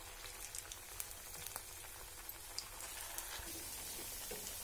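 Bread-and-potato cutlets deep-frying in hot oil: a steady sizzling hiss with scattered sharp crackles.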